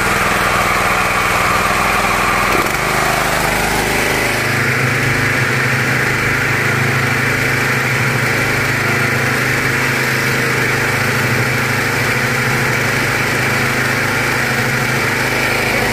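Small single-cylinder petrol engine, 6.5 hp, running steadily and driving a horizontal paddle feed mixer through its gearbox. Its note changes about three seconds in, then holds steady.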